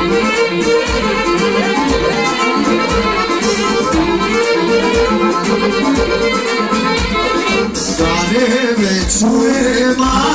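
Folk-style instrumental music led by a violin, played loud with a steady beat.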